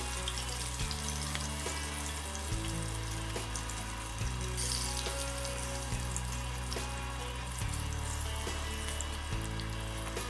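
Hot oil sizzling and crackling steadily as battered vegetable tempura deep-fries in a pot, with background music and its bass notes changing every second or so.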